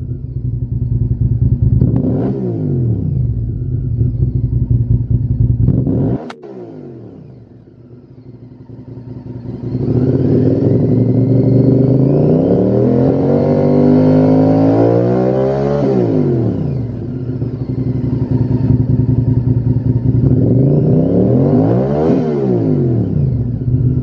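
Honda VTR1000's 90-degree V-twin running through a Lextek OP1 aftermarket silencer. It idles with a couple of quick throttle blips, then a sharp click about six seconds in and a few seconds of quieter running. Then comes a long rev that climbs for several seconds, holds, and falls back to idle, and a final blip near the end.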